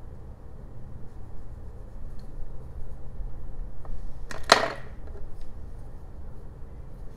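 A sharp double clack about four and a half seconds in, as a mechanical pencil is put down on a wooden workbench and a carving knife is picked up. Otherwise faint handling noise over a low steady hum.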